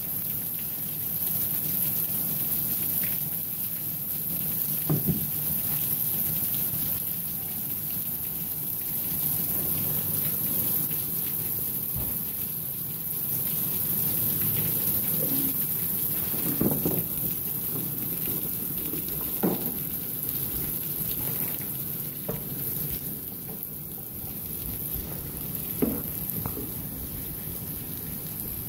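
Steady rain falling on a concrete balcony, an even hiss, with a few brief knocks scattered through it.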